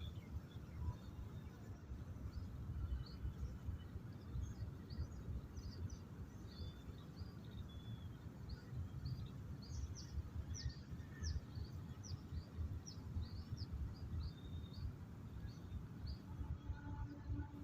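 Small birds chirping, with many short, quick notes throughout, over a steady low rumble.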